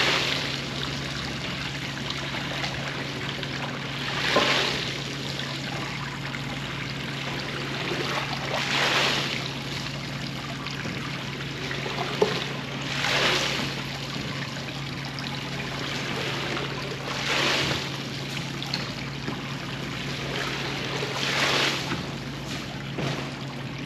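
Water running and washing over a rug being cleaned, with a hiss that swells regularly about every four seconds, over a steady low machine hum.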